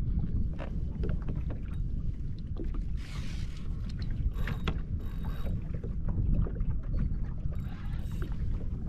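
Wind rumbling on the microphone, with scattered clicks and brief rustling as a fishing reel is worked against a hooked fish and a landing net is picked up.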